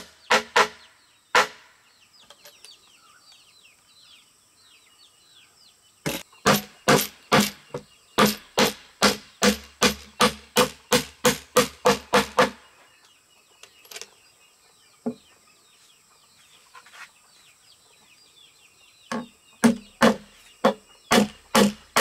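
Repeated sharp strikes, about three a second, in runs of several seconds with pauses between. Birds chirp in the quieter gaps.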